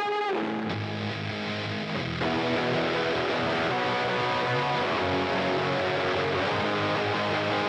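Music with guitar playing; the sound grows fuller and a little louder about two seconds in.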